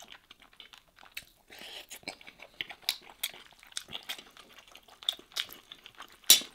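Close-miked eating sounds: a metal spoon clicking and scraping against a metal serving tray of rice while a cooked lamb back is pulled apart by hand, with chewing in between. A sharp clink near the end is the loudest.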